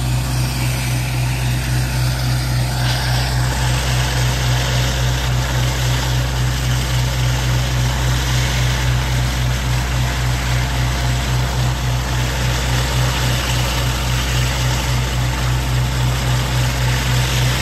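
High-pressure water blasting pavement-marking removal machine at work stripping paint from concrete: a loud, steady low drone from the high-pressure pump and engine that pulses evenly, under the dense hiss of the water jets.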